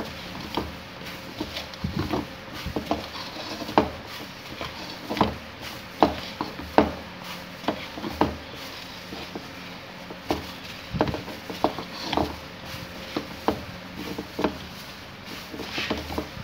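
Gloved hand kneading and pressing minced-meat chapli kabab mixture in a steel bowl: irregular slaps and dull knocks of the meat against the metal, roughly one a second.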